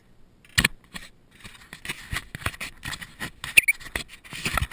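Irregular knocks, taps and scratchy scrapes on a Laser sailing dinghy's hull and fittings, starting with a sharp knock a little over half a second in.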